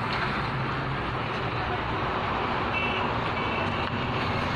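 Steady background noise of a busy street, with road traffic and faint voices; two short high beeps come in about three seconds in.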